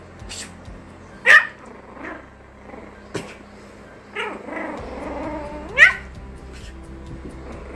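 Young Shih Tzu puppy yipping and whining in play as it mouths at a person's arm: two sharp, high, rising yips, about a second in and near six seconds, with a drawn-out wavering whine leading into the second.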